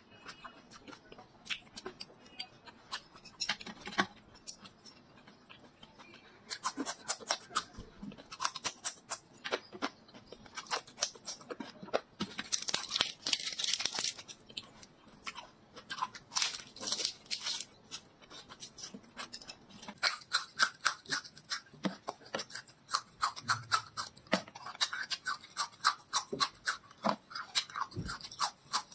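Close-miked chewing of crisp raw lettuce and vegetables: a long series of sharp, wet crunches. About halfway through there is a brief, denser crackling rustle as lettuce leaves are handled and folded.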